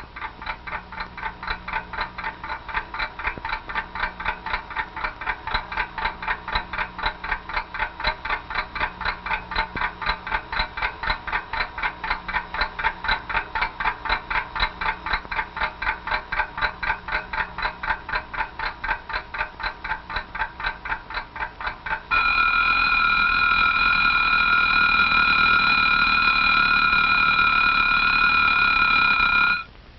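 Alarm clock ticking, about four ticks a second, then going off about two-thirds of the way through with a loud, steady ring that cuts off sharply shortly before the end.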